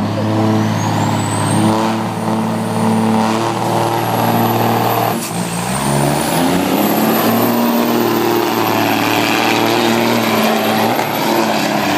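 Diesel engine of a pulling semi-truck under full throttle as it drags a sled, with a high turbo whistle rising in pitch over it. About five seconds in the engine note and whistle dip sharply, then climb again as the pull goes on.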